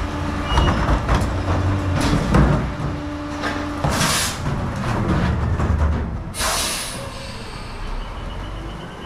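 Diesel rear-loader garbage truck running, with a low rumble and a few knocks. Two sharp hisses of air come about four and about six and a half seconds in, the air brakes. The engine sound then fades as the truck moves off.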